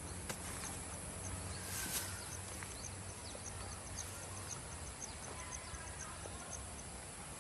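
Outdoor wildlife chirping: a high chirp repeats about three times a second, with scattered short falling chirps over a low steady rumble. A brief rustle comes about two seconds in.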